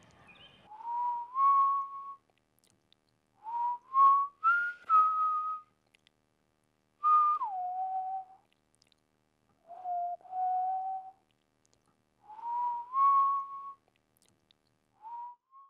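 Breathy whistling in six short phrases of sliding notes, each a second or two long with pauses between. Most phrases glide upward and one drops in pitch about a third of the way through. It is the 'delightful whistling noise' of wind through the hole that was just described.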